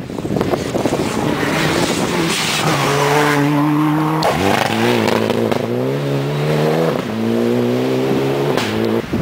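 A rally car's engine on a gravel forest stage, driven hard. The engine note climbs, drops and climbs again through gear changes and lifts. A rough rush of tyres on loose gravel fills the first few seconds.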